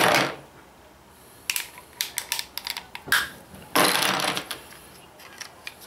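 Plastic Loc-Line ball-and-socket coolant hose segments and small plastic nozzles being handled and snapped together: a scattered run of sharp plastic clicks, with a couple of brief rattling shuffles as the pieces are picked from the tray.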